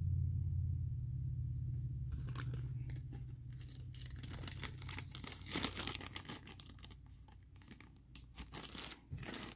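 Clear plastic bag being handled, crinkling and rustling irregularly, starting about two seconds in. A low steady hum is loudest at the start and fades out by the middle.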